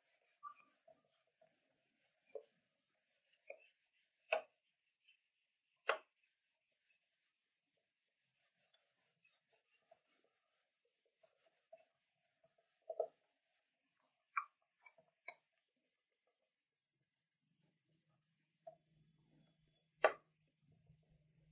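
Whiteboard being wiped with a hand-held eraser: faint rubbing and scuffing on the board, broken by a dozen or so short sharp knocks and taps as the eraser strikes the board. The loudest knock comes near the end.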